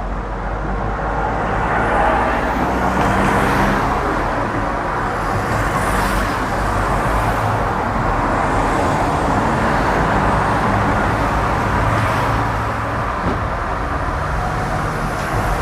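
Vintage tram running, heard from on board: a steady rumble with a low hum, growing louder about two seconds in, with a few faint clicks.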